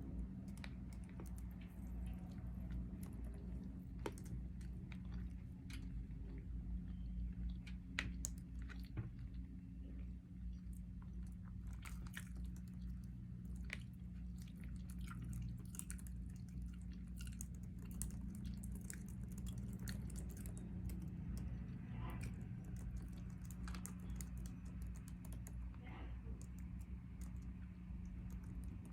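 A person chewing food, with many small scattered clicks over a steady low hum.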